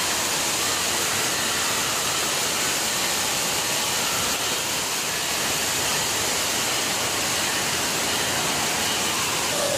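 Steady rushing of running water from a water park's slides and water features, an even, unbroken wash of noise.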